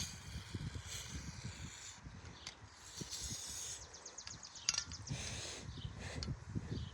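Hands working on a bicycle: short scuffing, hissing noises, with a quick run of clicks about halfway through and a single sharper click soon after.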